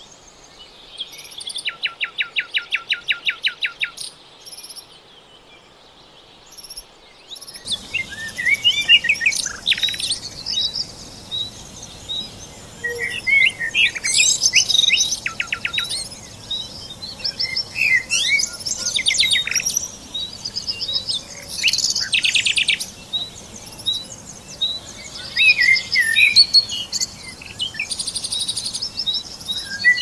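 Several songbirds singing and calling: a fast, evenly pulsed trill near the start, then a dense mix of chirps, whistles and a steadily repeated short note. About a quarter of the way through, the faint rush of a flowing stream comes in beneath the birds.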